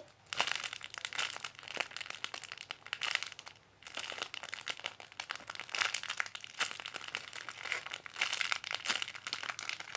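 Plastic packaging crinkling and rustling in irregular bursts as a squishy toy in its bag is handled, with a short lull about a third of the way in.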